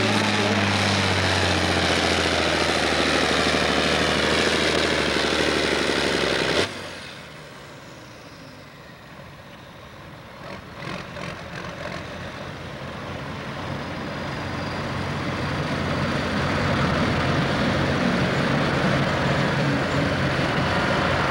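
John Deere farm-stock pulling tractor's diesel engine at full throttle under load, its pitch sinking steadily as the weight sled bogs it down. About six and a half seconds in the sound cuts off abruptly. What follows is a much quieter engine sound with a few clicks, slowly growing louder until it is as loud as before.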